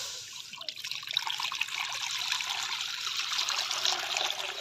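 Water poured in a steady stream from a stainless steel bowl into an empty metal karahi, splashing and pattering on the pan's bottom as it fills.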